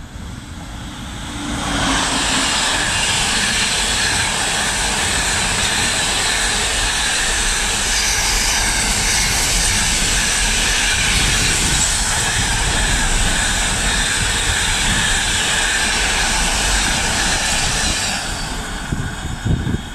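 Container freight train passing at speed. The noise builds as the locomotive comes in, then a loud, steady rush of wagon wheels on the rails takes over from about two seconds in and eases off near the end as the last wagons go by.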